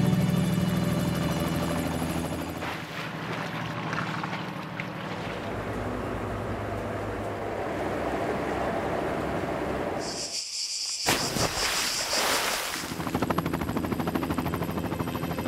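Background music fades out, giving way to the steady running of a helicopter engine and rotor. About ten seconds in the sound cuts abruptly, then returns louder with a fast rotor beat near the end.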